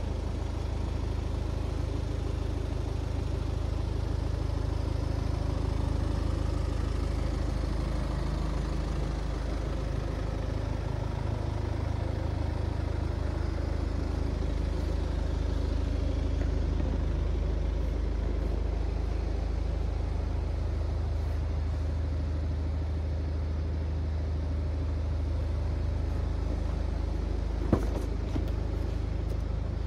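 BMW 420d's four-cylinder diesel idling steadily through an M Performance-style exhaust. A single sharp click near the end as the rear door latch is opened.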